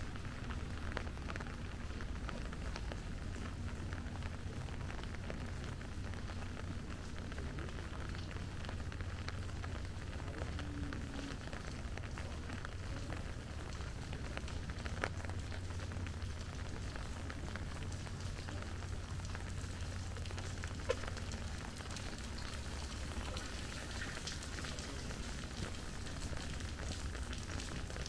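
Steady rain with a dense patter of fine drop ticks, over a low, steady rumble. A single sharp click stands out about 21 seconds in.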